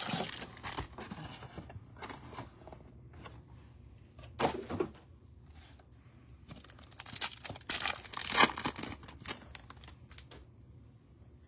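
Trading card pack being torn open and its cards handled: irregular tearing, crinkling and clicking, loudest about four and a half seconds in and again around eight seconds in.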